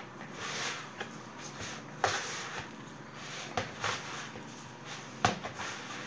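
Hands kneading soft yeast dough in a plastic bowl: squishing and rubbing, with a few sharp knocks, the loudest near the end.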